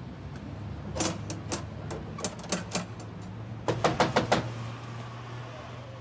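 Knuckles knocking on a front door: a loose string of knocks, then a fast run of five louder raps about four seconds in, over a steady low hum.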